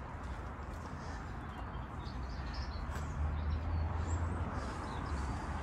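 Outdoor ambience: a low steady rumble with faint bird chirps in the background.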